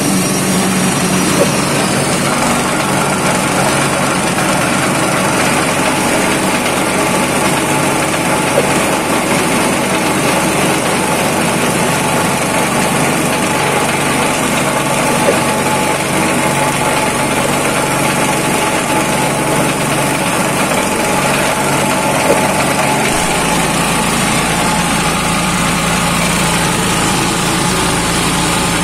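Small engine-driven foam shredder running steadily while scraps of foam are fed into its hopper and chopped into crumbs, with a few faint ticks. About three-quarters of the way through, its low hum grows heavier.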